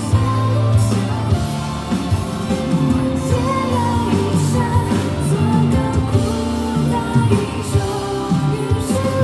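A Chinese pop song performed by a woman singing over band accompaniment with a steady bass line.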